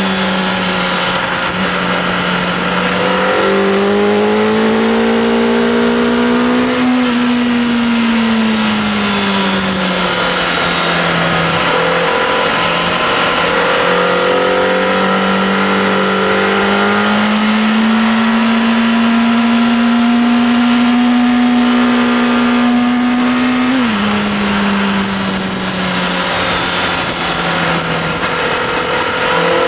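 Honda CBR Fireblade's inline-four engine heard from onboard at track speed, its pitch climbing under acceleration and falling away as the throttle closes, then a long climb ending in a sudden drop a little over three-quarters through as it shifts up. Heavy wind rush over the microphone throughout.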